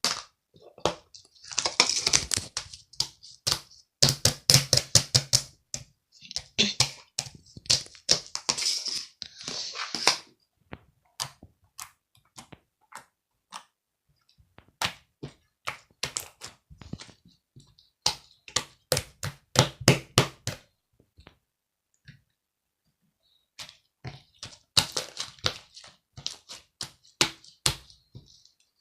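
Irregular runs of quick taps and knocks, bunched in dense flurries with short pauses between them.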